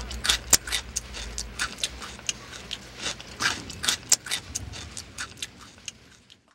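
Dishes and cutlery clinking: irregular sharp clicks and taps, a few each second, over a faint low hum, fading away shortly before the end.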